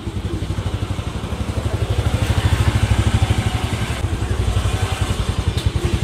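Motorcycle engine running at low road speed, with a rapid, even pulsing beat that grows louder about two seconds in.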